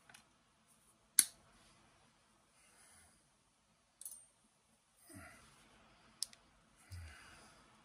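Sharp snips of diagonal wire cutters cutting through wire, three distinct clicks a few seconds apart, the first the loudest, with soft handling and rustling of small metal parts between.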